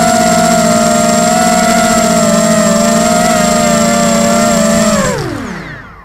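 Tarot 250 quadcopter's brushless motors and propellers whining steadily at one pitch, heard loud from its onboard camera. About five seconds in, the whine drops quickly in pitch and fades out as the motors spin down with the quad resting on the ground.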